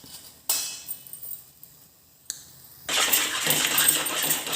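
A brief scraping rustle about half a second in. Then, from about three seconds in, a spoon steadily scrapes and stirs ginger paste roasting in ghee in a pan.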